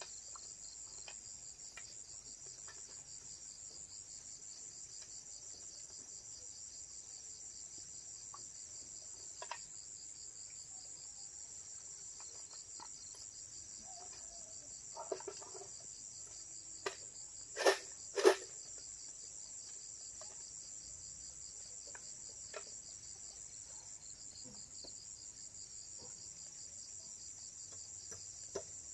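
Steady high-pitched insect chirring with a fine, even pulse. Scattered faint clicks run through it, and two sharp knocks about half a second apart come a little past the middle.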